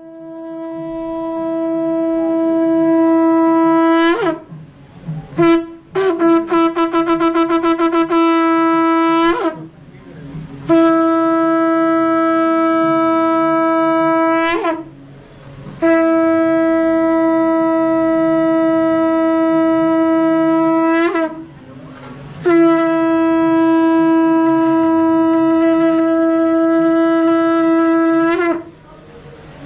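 Conch shell (shankh) blown in long, loud blasts at one steady pitch, each note falling away as it ends, with a rapid fluttering stretch a few seconds in.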